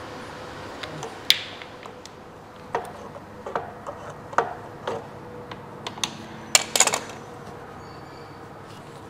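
Scattered sharp clicks and clinks of pliers and hose clamps on the thermostat housing's coolant lines as they are released. A quick cluster of clicks comes about two-thirds of the way through.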